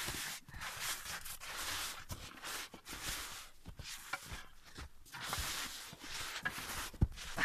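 Footsteps crunching and scuffing through snow in irregular, uneven steps, with a few soft knocks.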